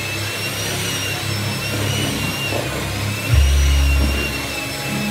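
Electric hand mixer running, its motor whine wavering up and down in pitch as the beaters work the mixture in the bowl. A louder deep rumble comes in for about a second, a little past three seconds in.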